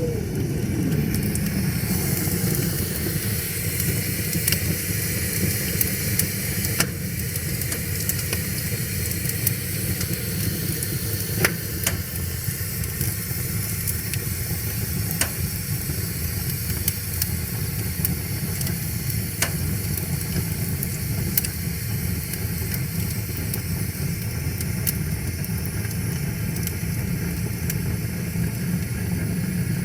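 Wood fire crackling, with sharp pops every few seconds, over a steady low rushing of river water.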